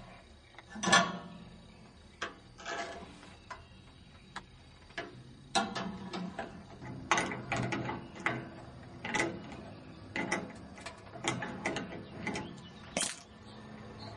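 Irregular metallic clanks, knocks and rattles of scrap metal being handled. A louder ringing clank comes about a second in, and the knocks come more often in the second half.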